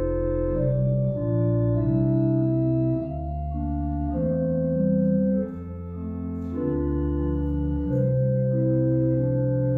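Church organ playing slow, held chords that change every second or so over a low bass line.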